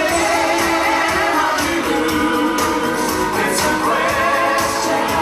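Several voices singing together over band backing with a steady beat, holding long notes.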